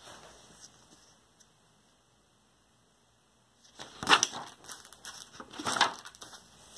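Paper page of a spiral-bound sketchbook being turned by hand: two short rustles of paper, about four and six seconds in.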